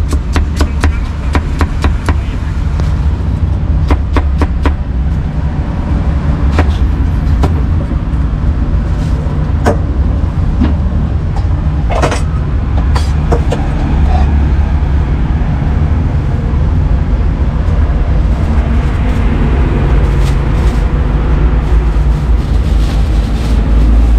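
Steady low rumble of street traffic. Over it, a cleaver strikes a wooden chopping block in a quick run of chops at the start, then single knocks scattered through the rest.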